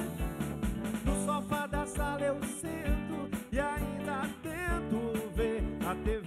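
Live rock band playing: electric guitars, electric bass and a drum kit with a regular kick drum under sustained chords, with a melody line that bends and wavers in pitch over them.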